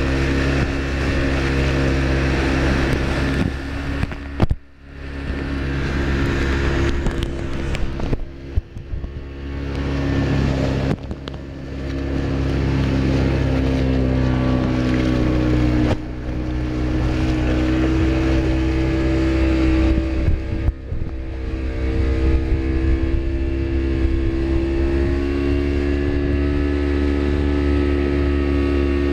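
Small motorboat's engine running steadily under way, its pitch drifting slightly, with water rushing and splashing along the hull. The sound dips briefly several times, most sharply about four and a half seconds in.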